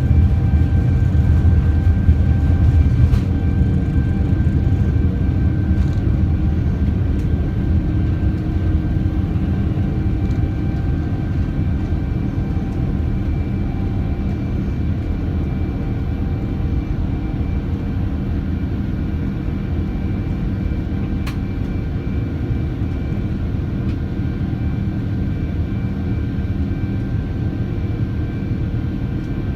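Boeing 787-9 jet engines (Rolls-Royce Trent 1000) at high power during take-off: a heavy steady rumble with several steady whining tones above it, slowly easing in loudness.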